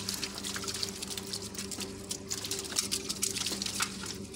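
Water splashing and trickling with many small quick flicks as hands sort live shrimp and small fish in a shallow tray of pond water. A steady low hum runs underneath.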